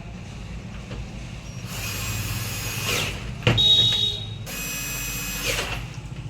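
Power screwdriver running in three short whining bursts, driving in the screws that close an angle grinder's housing, with a sharp click between the first and second burst.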